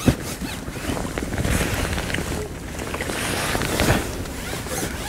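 Wind buffeting the microphone, a gusting rush that swells and fades, with a sharp knock at the very start.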